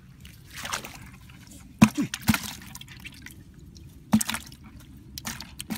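Catch tipped from a bamboo fish trap into a plastic bucket holding a little water: dripping and splashing water with several sharp wet slaps and knocks as the eel and fish drop in, the loudest about two seconds in and again about four seconds in.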